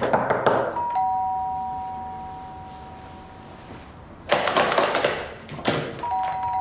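Two-tone doorbell chime, ding-dong, rings about a second in with both notes fading slowly, then rings again near the end. In between comes a louder burst of noise.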